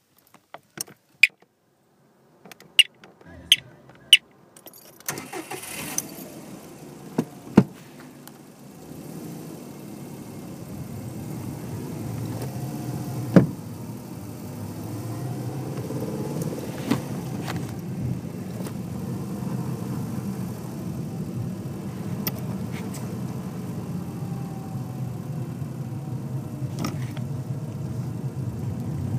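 A few sharp clicks and knocks. Then the 2007 Subaru WRX's turbocharged flat-four is heard from down in the driver's footwell, a steady low drone that builds as the car accelerates, with a few knocks along the way. It carries the noise the owner hears only under throttle between 1500 and 3500 rpm, cause unknown.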